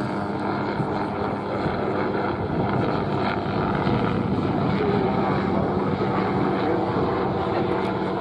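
Breda Nardi NH500 light military helicopter (a licence-built Hughes 500) in flight, its turboshaft engine and rotors running steadily with a constant low hum.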